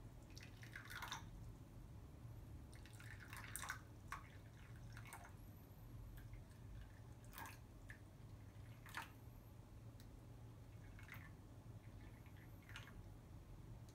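Tea dripping and trickling from a black side-handled teapot into small glass cups: a faint run of separate drips and short trickles every second or two.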